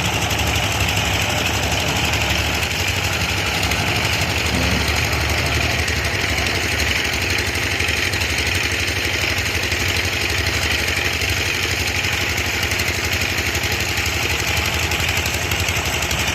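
Diesel engine running steadily with an even low rumble.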